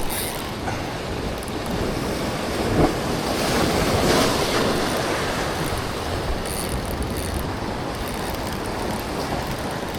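Ocean waves and rushing inlet water, with wind buffeting the microphone; the wash swells louder about four seconds in.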